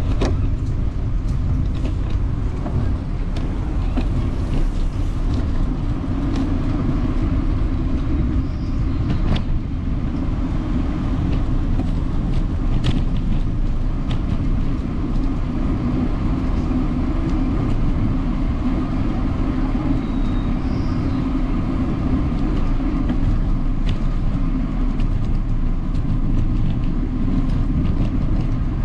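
Steady low rumble of vehicle traffic, with a few faint clicks.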